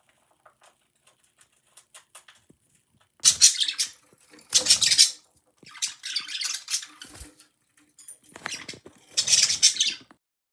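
Small beak clicks of budgerigars picking at food, then four loud, scratchy bursts of budgerigar chatter and squawks, each about a second long.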